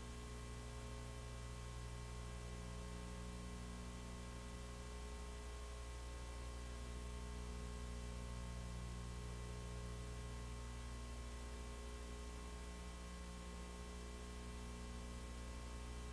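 Steady electrical hum with a stack of overtones over a faint even hiss, the background of an old video recording; nothing else sounds.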